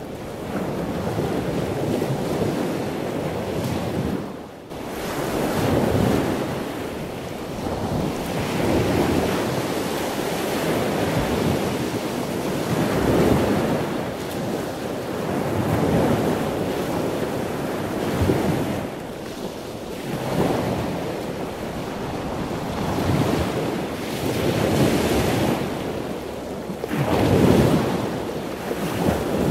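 Sea waves breaking and washing up on the shore, a new surge every two to three seconds, with a brief lull about four seconds in.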